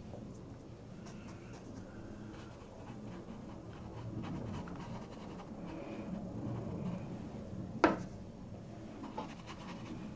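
Round paintbrush scrubbing and dabbing wet watercolour onto textured watercolour paper, a faint scratchy rubbing. A single sharp click stands out about three-quarters of the way through.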